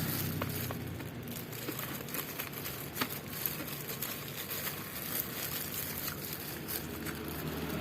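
Someone eating ayam geprek (smashed fried chicken): scattered small clicks and crinkling as the food is handled and chewed.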